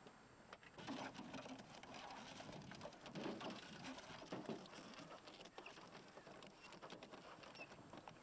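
A large dog's claws scraping and clicking irregularly on a car's bonnet and door window as it stands up against the car.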